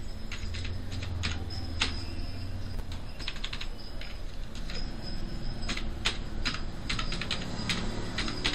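Computer keyboard typing: a run of irregularly spaced keystroke clicks as an email address is typed in, over a faint low hum.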